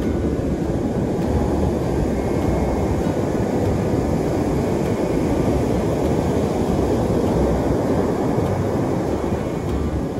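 Steady low roar of heavy surf breaking on the beach, even and unbroken.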